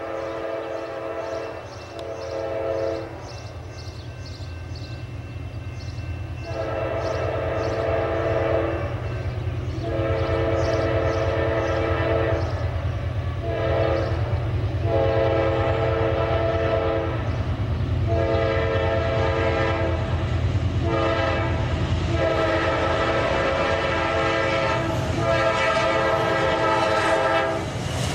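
Norfolk Southern freight train's lead diesel locomotive sounding its multi-note air horn in a series of long and short blasts, the grade-crossing warning repeated as it approaches. Under the horn the locomotives' diesel engines run steadily, growing louder as the train nears.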